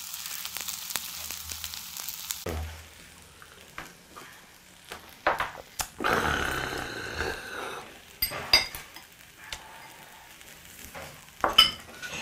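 Rice and vegetables sizzling steadily in a hot stone bowl (dolsot) as they are stirred, stopping abruptly about two and a half seconds in. After that come scattered sharp clinks and taps of tableware, with a short louder noisy stretch around the middle.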